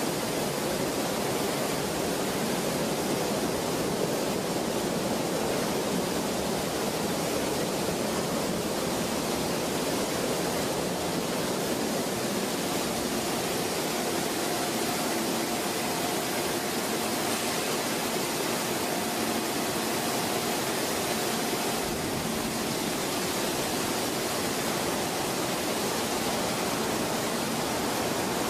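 Steady rushing din of a hot steel rolling mill as a glowing slab runs along the roller table, with a faint thin whine coming and going about halfway through.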